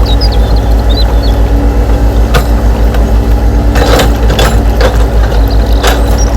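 Heavy diesel-excavator engine sound from the RC excavator, running steadily with a rapid low throb. A few sharp knocks and scrapes come in the middle and near the end.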